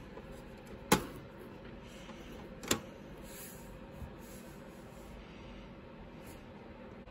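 Plastic rear doors of a Bruder toy UPS truck snapping shut by hand: two sharp clicks about two seconds apart, the first the louder, then a faint tick a little later.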